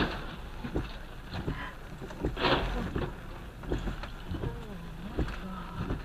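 Car crash heard from inside a car: a loud impact as two cars collide right at the start, then a second burst of crash noise about two and a half seconds in, with scattered clicks throughout.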